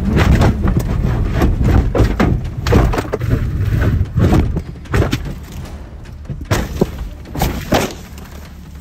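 McLaren 765LT crashing off the end of a runway onto grass, heard from inside the car: a rapid series of heavy thumps and bangs over a low rumble, thinning out and fading over the last few seconds.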